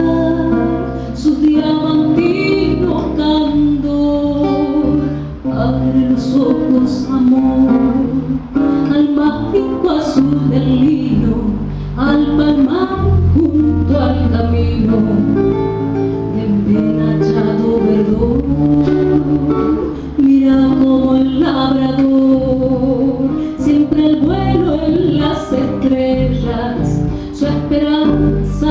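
Woman singing a slow, held melody into a microphone over several acoustic guitars plucking and strumming, with low sustained bass notes underneath.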